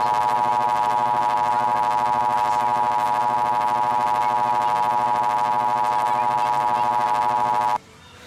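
Emergency Alert System attention signal: the steady two-tone alarm (853 and 960 Hz sounded together) held for about eight seconds and cutting off abruptly near the end, announcing an emergency alert message.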